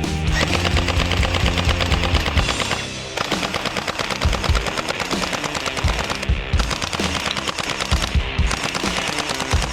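Rapid automatic-gunfire sound effect from a toy AK-47 submachine gun, rattling off in long bursts with brief breaks about three, six and eight seconds in.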